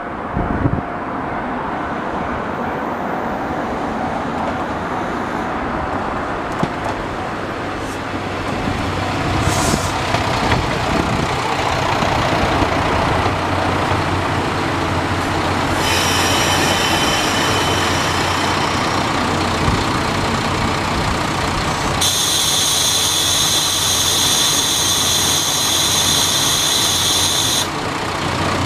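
The Shikoku Mannaka Sennen Monogatari diesel tourist train rolls slowly alongside the platform: a steady engine and wheel rumble that grows louder as it comes in. A high metallic squeal from its running gear sets in about halfway, is strongest over the last few seconds, then cuts off suddenly.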